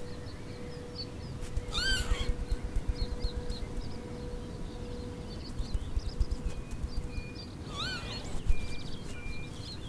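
Northern lapwing calling twice, about six seconds apart, each call a slurred 'pee-wit' that rises then falls in pitch. Faint chirps of other small birds and a low rumble run underneath.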